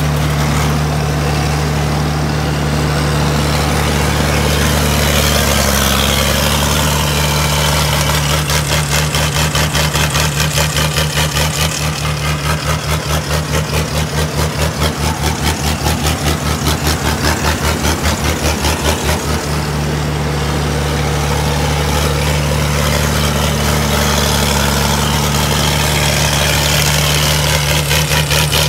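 Diesel engine of a tracked rice combine harvester running hard while the machine works through deep paddy mud. A rapid, even throbbing pulse of about four beats a second sets in partway through, drops away, and returns near the end.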